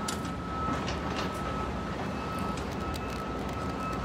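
An engine running steadily: a constant low rumble with a thin, held high whine that drops out briefly a few times, and some light clicks.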